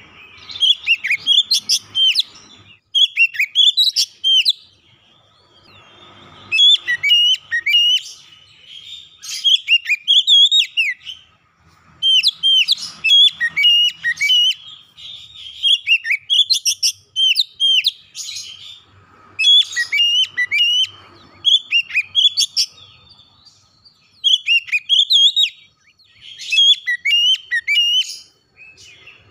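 Oriental magpie-robin singing: phrases of clear, varied whistled notes with quick up-and-down slurs, each a second or two long, broken by short pauses.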